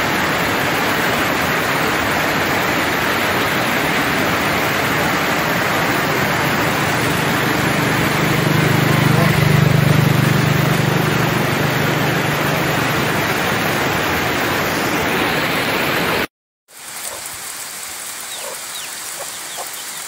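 Overflow water from a reservoir's spillway rushing over rocks and brush as a steady loud rush. About 16 seconds in it cuts off, and a quieter hiss follows with a few short high bird chirps.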